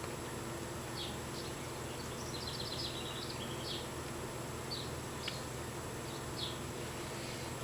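Faint high chirps and short rapid trills from a small animal, coming every second or so over a steady low hum.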